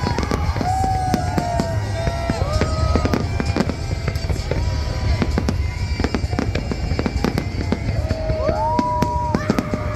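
Large fireworks display: a dense, continuous string of shell bursts and crackling bangs, several a second.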